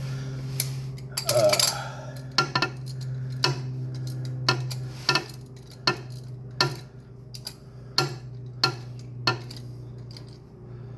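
Ratchet wrench clicking at an even pace, about one click every two-thirds of a second, as a spark plug is backed out of a Toyota Chaser JZX90's engine, with a brief louder metallic scrape near the start. A steady low hum runs underneath.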